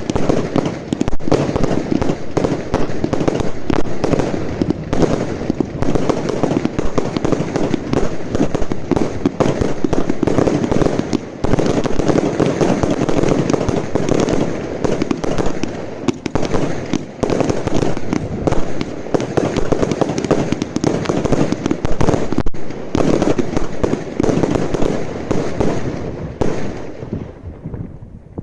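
Fireworks going off in a dense, continuous barrage of rapid bangs and crackling, which dies away shortly before the end.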